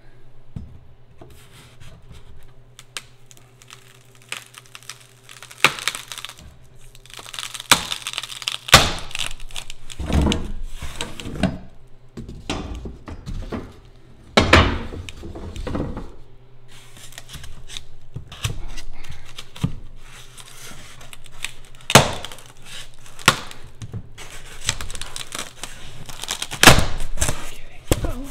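Utility knife cutting through EPS foam-board insulation: irregular scraping, crunching strokes with several sharp cracks as the foam gives way, the last near the end as a block breaks free.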